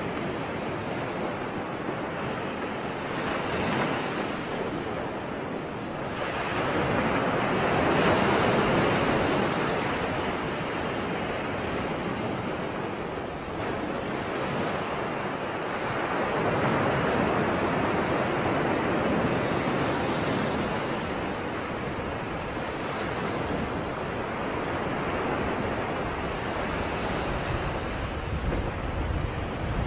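Sea surf: waves washing in, the noise swelling and easing every few seconds, with a low rumble building near the end.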